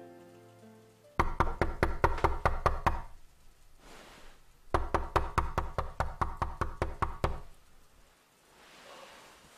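Two bouts of rapid, loud knocking on a door, each lasting a couple of seconds, with a short pause between them.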